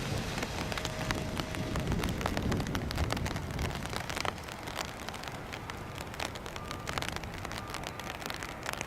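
Rain falling, with many drops pattering close by, over a low rumble that swells around two to three seconds in.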